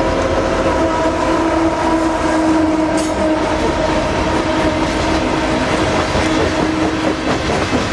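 Loaded coal train rolling past at close range: the trailing diesel locomotive goes by, then the coal hopper cars rumble and clatter on the rails. A steady droning tone runs under it and fades out about seven seconds in.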